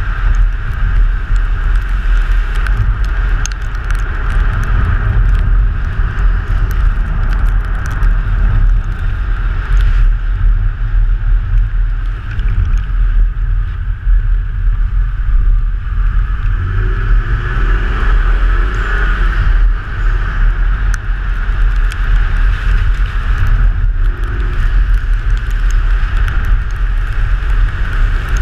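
Rally car driving at speed on a special stage: steady engine and road noise under a heavy, gusting low rumble of wind on the microphone.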